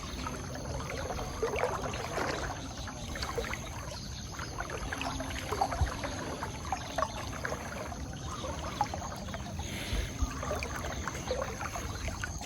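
Floodwater splashing and sloshing with irregular small splashes as a person moves slowly through it.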